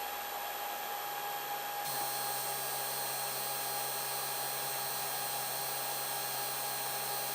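3D printer humming steadily with a fixed whine from its motors and fans; about two seconds in, a low hum joins and the sound gets fuller.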